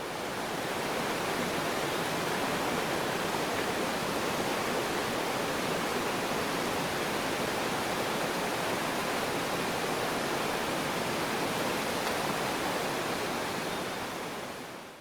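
Steady rushing of flowing water, like a mountain stream or small waterfall, fading in at the start and fading out at the end.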